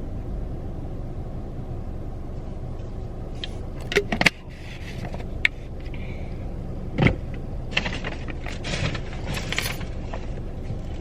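Rummaging for a plastic fork inside a car: a few sharp clicks and knocks, then a stretch of rustling and clattering, over a steady low hum of the car cabin.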